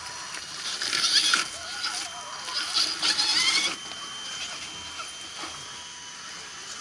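Scale RC rock crawler's electric motor and geared drivetrain whining in two bursts, about a second in and again around the middle, as the truck powers up and over a dirt ledge.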